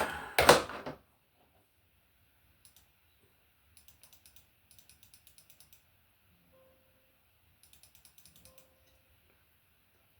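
A single knock about half a second in, then several short runs of faint, rapid light clicks.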